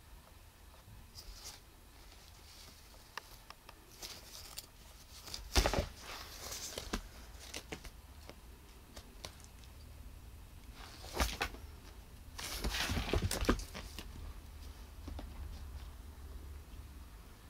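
A cat playing with a dangled strip toy on carpet: scattered light rustles, scuffs and taps from the toy and its paws, with a sharp burst about a third of the way in and a longer flurry of rustling a little past the middle.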